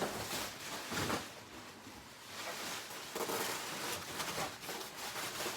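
Rustling and scraping handling noise with a few sharp knocks, as a large vending machine is unpacked and handled.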